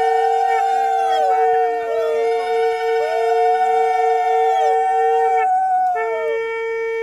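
A conch shell (shankha) blown in one long steady note, breaking off briefly near the end and then sounding again, while several women ululate (the Bengali ulu) in overlapping calls that rise and fall in pitch. Together they mark the auspicious moment of the gaye holud ritual.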